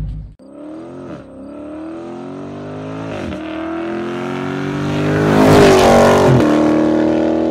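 Dodge Challenger V8 accelerating hard through the gears. The engine note climbs, drops at each of three upshifts and climbs again, getting louder to a peak a little over five seconds in.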